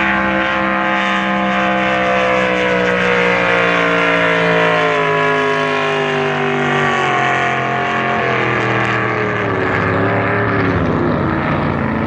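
Drag boat's racing engine running hard on its pass, loud and steady, its pitch falling gradually as it runs down the course and winds down, easing off near the end.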